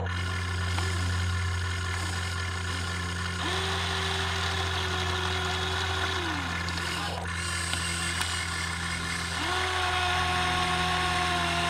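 Electric motors of a Huina 1593 RC excavator whining under a steady low hum. Twice the whine ramps up in pitch, holds level for a few seconds and then drops away.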